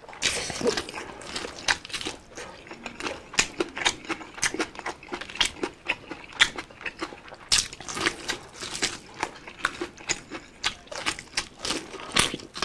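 Close-up eating sounds of two people chewing, with many short irregular clicks and smacks, as they bite into boiled corn on the cob and chew vegetables.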